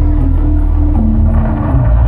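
Loud volcano-show soundtrack: held melodic notes that step between pitches, over a deep, heavy bass rumble.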